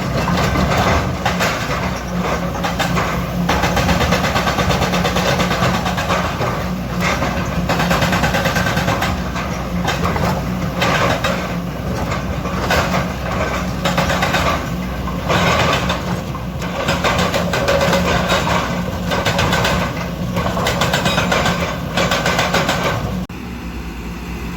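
Kobelco hydraulic excavator working: its diesel engine runs steadily with a constant low hum, over a dense, uneven clatter of machinery and rock. The sound drops off suddenly about a second before the end.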